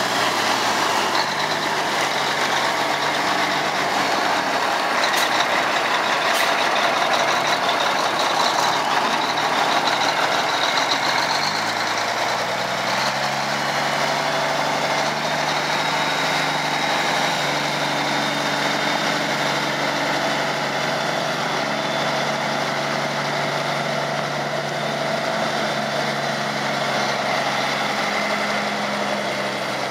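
1982 Mack R-model roll-off truck's diesel engine running as the truck moves off slowly; the engine note climbs about twelve seconds in, then holds steady. An impact wrench can be heard in the background.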